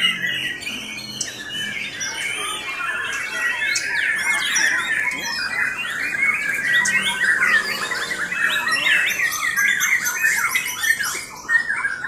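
Several caged white-rumped shamas (murai batu) singing at once: a dense, unbroken stream of rapid, overlapping whistled phrases and trills.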